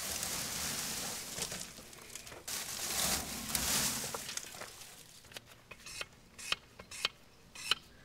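Rustling and crinkling of a dry-grass bird's nest being handled inside a round baler, loudest about three to four seconds in. It gives way to a few sharp clicks and taps.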